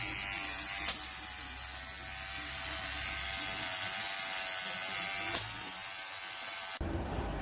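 A steady electric buzz from a small motor, broken by two abrupt cuts, which switches near the end to a low rumble.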